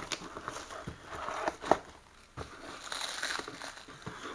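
Hands fumbling with a cardboard box wrapped in black plastic while trying to open it: a few sharp cardboard taps and knocks in the first half, then plastic wrap crinkling about three seconds in.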